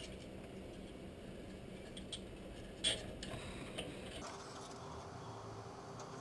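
A few light, separate plastic clicks and taps from cable ties being handled and threaded while mounting a computer case fan, over a steady background hum.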